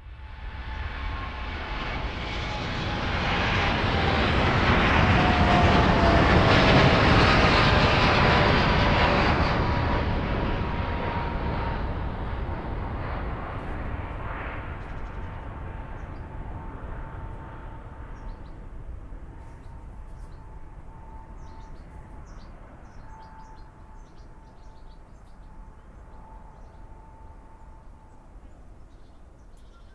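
Boeing 787-8's GEnx-1B turbofan engines at takeoff power, building to a peak about six to eight seconds in and then slowly fading as the airliner climbs away. A whine falls in pitch as it passes, and a steady whistle-like tone stays under the fading rumble.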